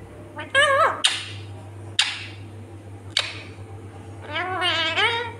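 Rose-ringed (Indian ringneck) parakeet vocalising: a short rising chirp near the start, several sharp clicks with brief harsh rasps in the middle, and a wavering, warbling call about four seconds in.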